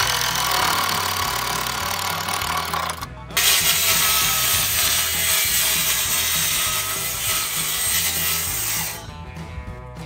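Circular saw cutting through plywood: two long cuts with a short break about three seconds in, the saw stopping about nine seconds in.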